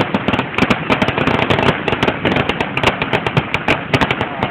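Fireworks going off in a rapid, unbroken run of sharp cracks and pops, many per second.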